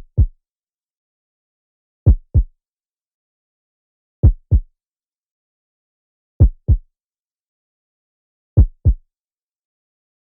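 Heartbeat sound effect: a double 'lub-dub' of two short low thumps, the first slightly louder, repeating slowly about every two seconds with silence between, five beats in all.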